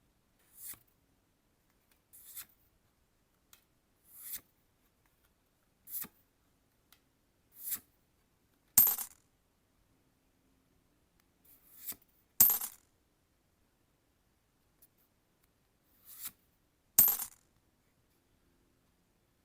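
Pokémon trading cards being slid off the stack one at a time, making about ten short brushing sounds a second or two apart, three of them louder.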